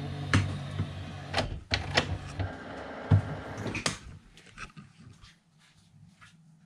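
A run of sharp plastic clicks and knocks from a Canon Pixma E3370 inkjet printer's cover and mechanism just after its ink cartridges are fitted, over a low steady hum that stops about four seconds in. Only faint ticks follow.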